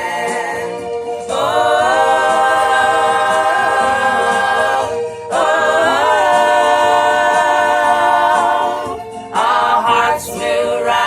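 A cappella vocal group singing without instruments: two long held chords, then quicker moving notes near the end.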